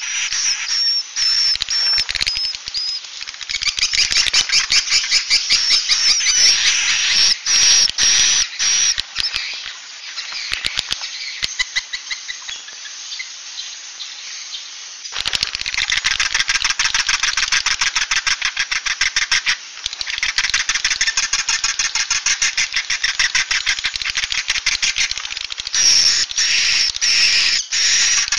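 Recorded swiftlet calls, a 'suara inap' lure sound of the kind played in swiftlet houses to draw birds in to roost: dense, rapid, high twittering and chirping. It thins out and drops in level for a few seconds in the middle, then resumes at full density about halfway through.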